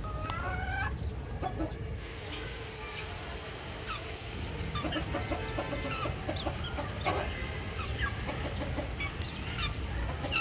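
Chickens clucking, with a steady run of short, high chirps throughout and a few louder clucks in the middle seconds.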